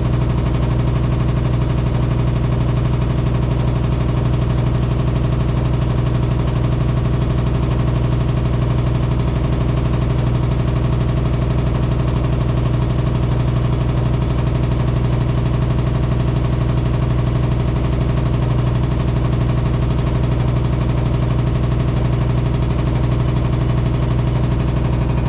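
Hitachi SF-150TCV 15 kg washing machine in its spin cycle, running with a loud, steady hum. The owner finds it abnormally loud and cannot say why; he has checked that the machine stands level.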